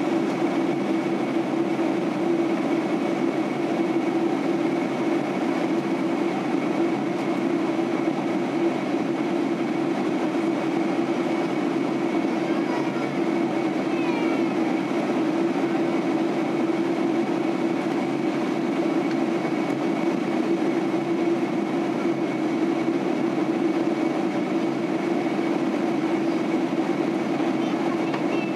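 Steady in-flight cabin noise of a Boeing 767-300 airliner during descent: engine and airflow noise with a constant low hum and a faint high whine.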